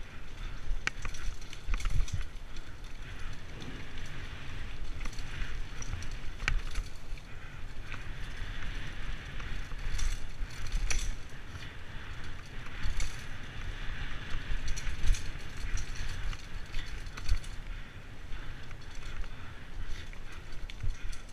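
Mountain bike riding down a dirt singletrack: tyres rumbling over the ground, with the chain and frame rattling and clicking over bumps and roots.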